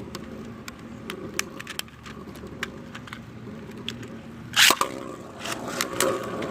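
Sharp plastic clicks as Beyblade launchers and tops are readied, then a loud rip about four and a half seconds in as the tops are launched. After the rip, the spinning tops whir and scrape in the stadium, growing louder.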